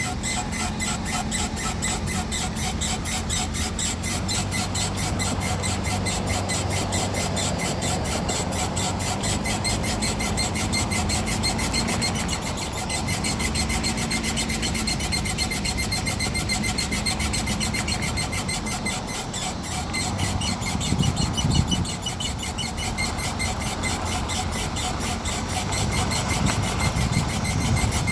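A 2008 Nissan Rogue's chirping squeak: a fast, even run of high chirps over the low hum of the running car. The owner has not found its cause and hears it mostly during turns.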